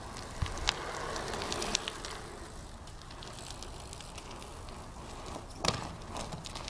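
2010 Eastern Growler BMX bike being ridden: a rushing, rolling noise with scattered clicks over the first couple of seconds, then a sharp knock about five and a half seconds in.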